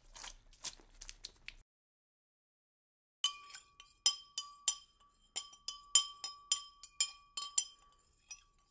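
Metal spoon stirring in a white enamel mug, clinking against its sides. A few faint clicks come first, then after a pause about fifteen quick, sharp clinks, each leaving a short ringing note from the mug.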